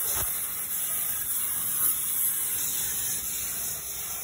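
FastCut CNC plasma table's torch cutting 6061-T6 aluminium sheet: a sharp crack just after the start, then the steady high hiss of the plasma arc and its air stream.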